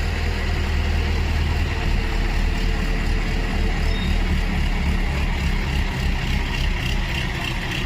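A vehicle engine running steadily with a low, even drone.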